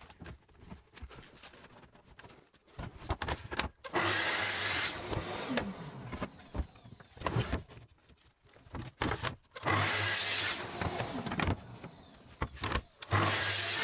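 Festool track saw cutting pine boards to size along a guide rail: three short cuts of about a second each, the motor's pitch falling as it spins down after each one. Knocks of boards being handled in between.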